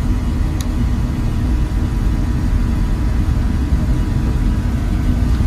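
Oil burner of a Weil-McLain boiler firing steadily: a continuous low rumble from the flame and burner blower, with a brief tick about half a second in.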